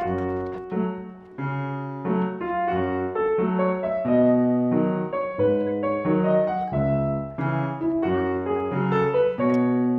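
Background piano music: held notes and chords changing at an even pace.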